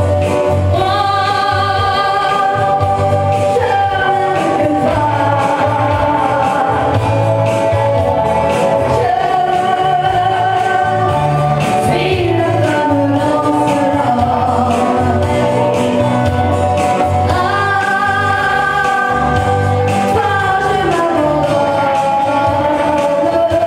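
Woman singing a country song into a microphone, amplified over a musical accompaniment with a steady bass beat. She holds long notes and glides between pitches.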